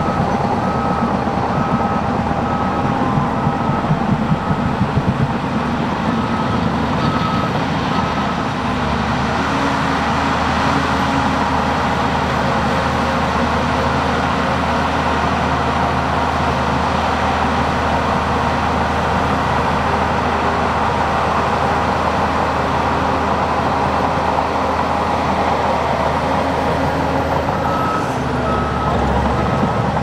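Bulldozer's diesel engine running steadily, with a reversing alarm beeping over it for the first eight seconds or so and again near the end.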